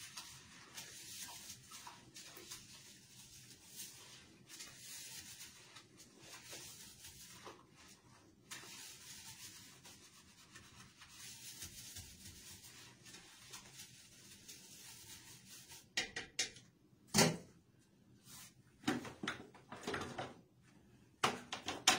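Toilet bowl being scrubbed by a gloved hand: a steady scratchy rubbing that comes and goes with the strokes, then several sharp knocks and clatters of things handled in the last few seconds.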